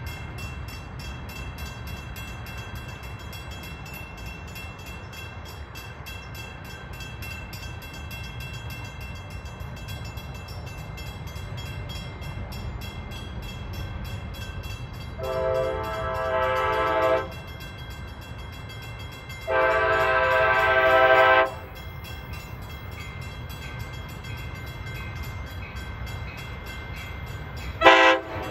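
Train horn sounding for a grade crossing: two long blasts about two seconds each, then a short sharp one near the end, each louder than the one before as the train approaches. This long-long-short sequence is the start of the standard crossing warning. A steady low rumble runs underneath.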